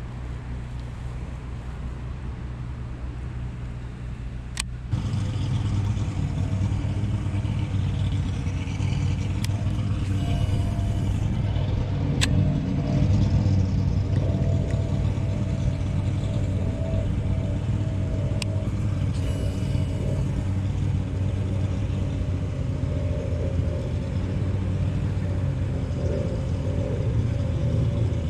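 A steady motor drone, a low hum with a faint pitched whine above it, that gets louder about five seconds in. A few sharp clicks sound over it.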